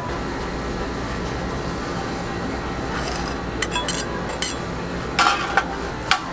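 Metal spatula scraping over a frozen ice-cream plate, then several sharp metallic clinks of utensils against steel containers in the last few seconds, over a steady low hum.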